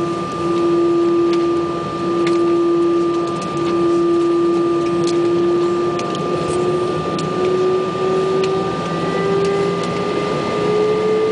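Airbus A320 jet engines heard from inside the passenger cabin. A steady whine starts rising in pitch about halfway through as thrust is brought up for the take-off roll, over an even cabin rumble.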